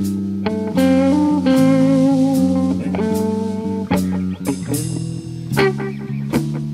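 Live band with no singing: an electric guitar plays a lead line of held notes, some wavering, over an electric bass and a drum kit with regular cymbal and drum hits.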